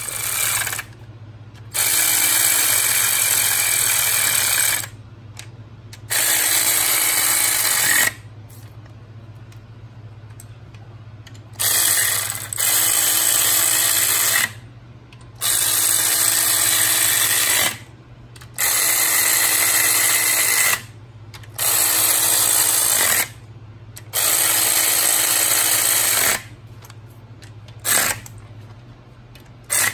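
Cordless electric ratchet running in about ten bursts of one to three seconds each, spinning nuts down on a diesel engine's rocker arm assembly.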